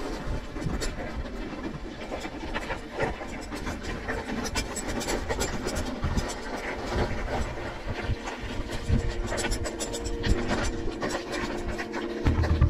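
Mountain bike rolling downhill over loose rock and gravel: tyres crunching on stones and the bike rattling with many sharp clicks and knocks. Music comes in near the end.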